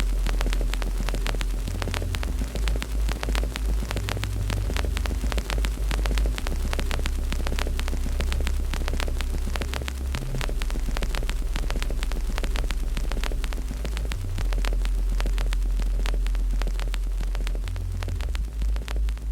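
Fireplace fire crackling with a steady stream of small pops and snaps, over a deep low hum that throbs at times.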